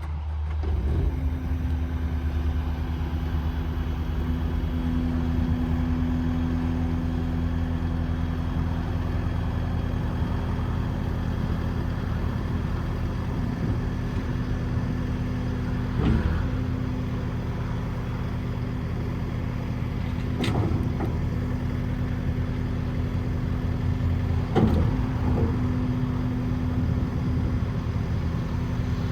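Kubota SSV75 skid steer loader's diesel engine running at a steady speed, with a few short sharp knocks or clanks about 16, 20 and 25 seconds in.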